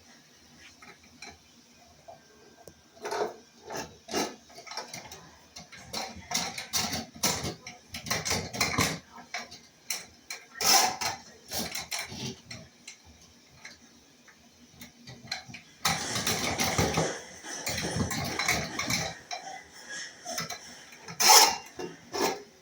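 Irregular metallic clanks, knocks and rattles of plumbing work, as tools and metal parts are handled and struck. There is a denser, noisier stretch of clattering a little past halfway, and a sharp loud knock near the end.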